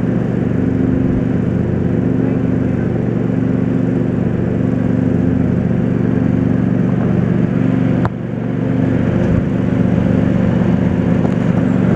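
A steady low machine hum of several held tones, with one sharp click about eight seconds in, after which the hum briefly drops and then comes back up.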